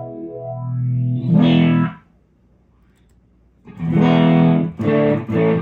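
Telecaster electric guitar played through a Small Stone–style phaser pedal into a Fender Hot Rod Deluxe tube amp. Chords ring and stop about two seconds in. After a short silence, more chords follow, the last ones played as short stabs.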